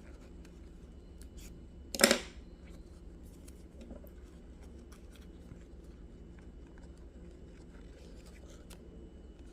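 Dried pandanus leaf strips being handled and pulled during weaving, giving faint scattered crackles and ticks, with one louder short rasping sound about two seconds in.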